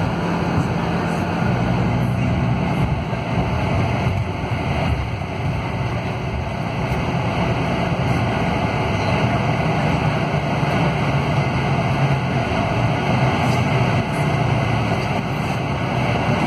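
A Scania DC13 six-cylinder diesel coach engine and its road noise heard from inside the passenger cabin as the bus pulls away from a stop and accelerates to about 50 km/h, then eases off. The engine note steps and changes as the automated Opticruise gearbox works through the gears.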